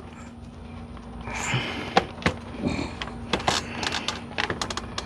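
Scattered clicks and knocks, with a brief scrape about a second and a half in, from a flexible plastic fan shroud being worked into place around a pickup's engine fan.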